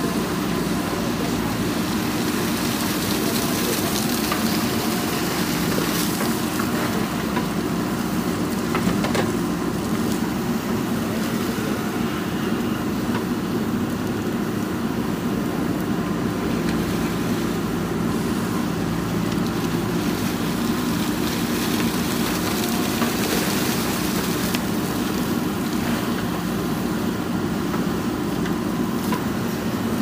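JCB 3DX backhoe loader's diesel engine running steadily under digging load as the backhoe arm works, with a few sharp knocks from the bucket and arm.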